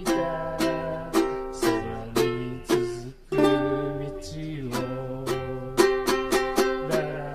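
Ukulele strummed in simple chords at a slow, steady pace, about two strums a second.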